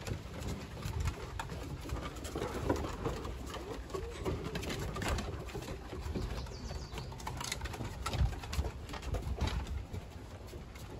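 Low, grumbling play-growls from shepherd-husky mix puppies and adult dogs, mixed with irregular clicks of claws and paws on wooden deck boards.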